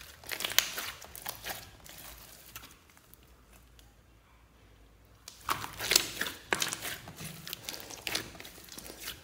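Hands squishing and kneading a large mass of glossy slime mixed with foam beads, making dense wet crackles and pops of trapped air. The crackles die away for about three seconds in the middle, then start again.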